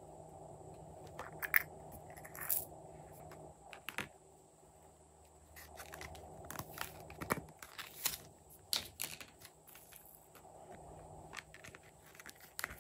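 Hands handling small plastic objects over plastic slime tubs: scattered light clicks, taps and crinkles, more of them about seven to nine seconds in, over a faint steady hum.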